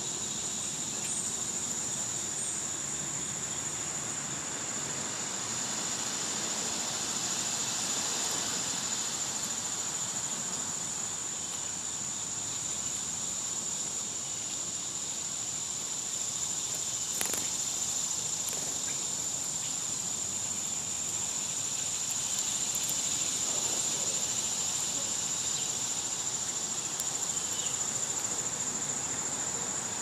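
A steady, high-pitched summer insect chorus holding one unbroken pitch throughout, with a single sharp click about halfway through.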